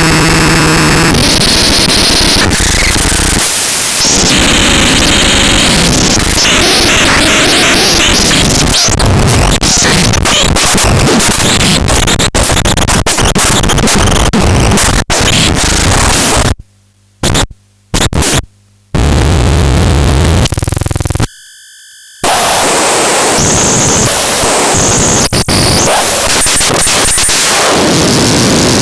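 Harsh electronic noise: a loud, dense, distorted wall of noise that cuts out abruptly three times in quick succession about two-thirds of the way through, followed shortly by a steady buzzing tone for about a second before the noise resumes.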